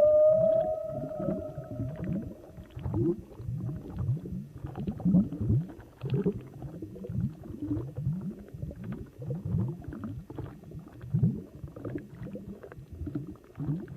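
Underwater recording of marine animal calls: a held, clear tone with an overtone that fades out about two and a half seconds in, then a steady run of short, low, upward-sweeping grunts, several a second.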